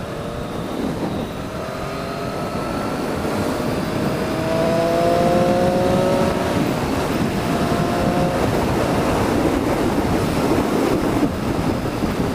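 Motorcycle engine on the move, its note rising steadily in pitch over several seconds as the bike accelerates, over a loud rush of wind on the helmet microphone.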